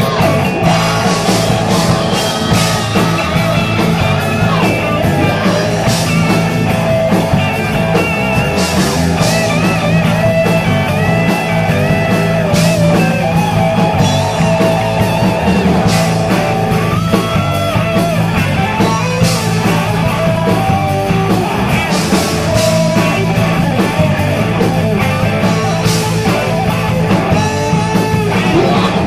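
A hard rock band playing live: two electric guitars, bass guitar and drum kit together, with a lead line wavering and bending in pitch above a steady bass and drum groove.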